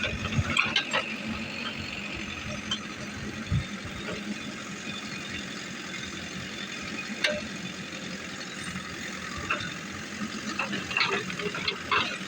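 Backhoe loader's diesel engine running steadily, with a few short knocks and clanks now and then.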